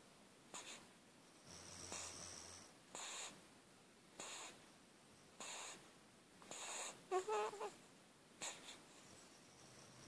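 A sleeping newborn baby's snuffly, snoring breaths, quick and quiet, about one a second. A little after seven seconds in comes a short squeaky whimper, the loudest sound here.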